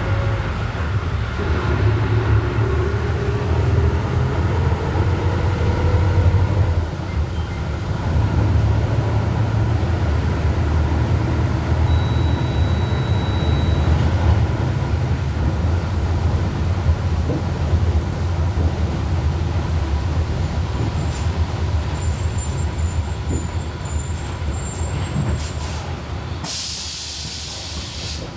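Volkswagen Volksbus 17.230 OD bus under way, heard on board: a steady low engine drone with the gearbox's growl ('caixa roncando'), its whine rising for the first several seconds and breaking off about seven seconds in. Near the end comes a brief hiss of air from the air brakes, lasting about a second and a half.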